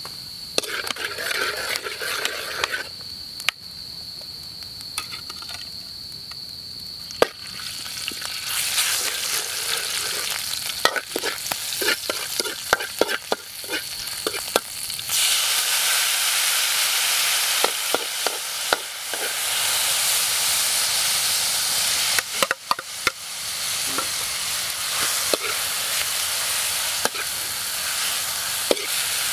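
Garlic and chillies frying in oil in a wok, stirred with a metal spatula that clicks and scrapes against the pan, with a thin steady high tone in the first several seconds. About halfway through, the sizzling gets suddenly much louder, as wet water lily stems go into the hot oil, and carries on under the stirring.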